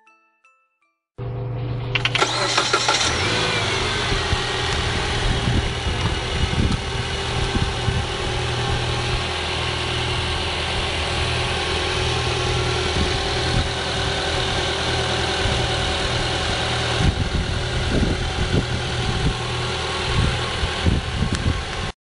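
Mitsubishi 4B12 2.4-litre four-cylinder engine starting about a second in and then idling steadily, cutting off abruptly near the end.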